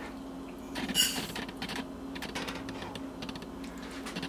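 Dry rice poured from a mug into a stainless steel saucepan: a short rush of grains hissing and ringing against the metal about a second in, then scattered light clicks and ticks as the grains settle and the pan is set on the coil burner.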